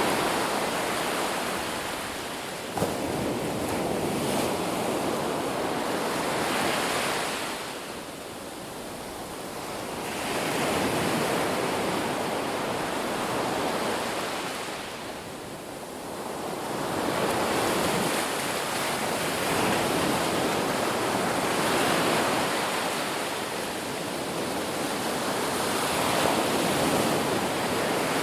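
Ocean surf washing onto a shore: a broad wash of breaking waves that swells and ebbs in slow surges every several seconds, with a brief sharp knock about three seconds in.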